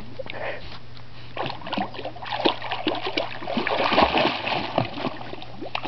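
A puppy paddling in a swimming pool, her paws churning the water in a busy run of irregular splashes.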